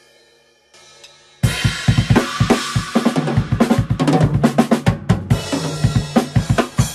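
Drum kit played hard and fast, with rapid kick drum, snare and cymbal hits, starting suddenly about a second and a half in after a fading cymbal ring and a quiet pause.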